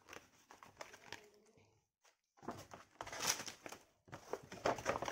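Paper and gift packaging rustling and crinkling as they are handled, with pages of a spiral-bound notebook being turned. The rustling stops briefly about two seconds in and then comes back busier and louder.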